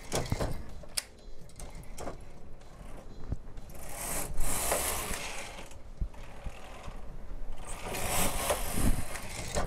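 Knitting machine carriage pushed across the needle bed twice, each pass a long mechanical rattling swish, after a few sharp clicks.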